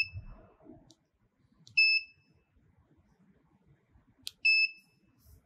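Key-press beeps from an AWC7824k laser-cutter controller's touchscreen as a pen taps in a value: three short, high beeps, each just after a light tap. The first comes at the start, the second about two seconds in and the last about four and a half seconds in, when the enter key is pressed.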